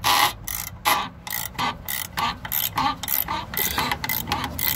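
Ratcheting wrench clicking in short repeated bursts, about two to three a second, as it is swung back and forth on the 18 mm top nut of a truck's rear shock absorber to loosen it.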